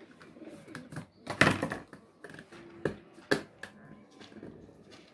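Clicks and knocks of a small screwdriver and wire being worked into the screw terminal block of an access controller circuit board while the positive 12 V wire is fastened. The sharpest knock comes about a second and a half in, with two more near the three-second mark.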